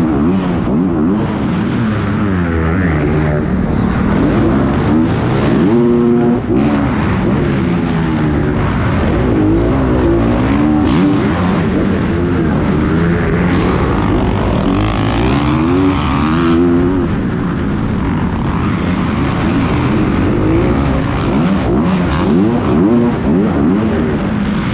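Dirt bike engine revving, its pitch rising and falling over and over as the rider works the throttle and gears around the track, with other bikes' engines mixed in.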